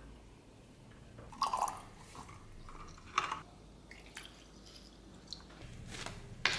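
Water splashing and a thin plastic bottle crackling in a few short spells, as water is poured into a cut-down plastic bottle holding an old knife handle.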